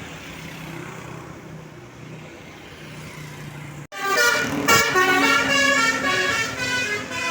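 A vehicle engine running steadily, then about four seconds in a tour bus's Basuri telolet horn starts, loud, playing a quick stepping multi-note melody.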